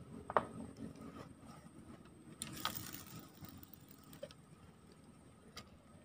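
Spinning fishing reel being worked by hand, with faint mechanical ticking. There is a sharp click about a third of a second in and a brief hiss about two and a half seconds in.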